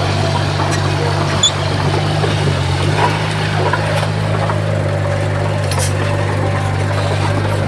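Heavy diesel engine of earthmoving equipment running steadily with an even low drone, with a few light clicks over it.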